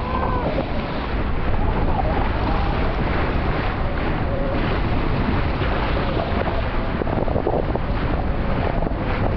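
Wind buffeting the microphone over the steady rush and splash of water along the bow of a motorboat under way.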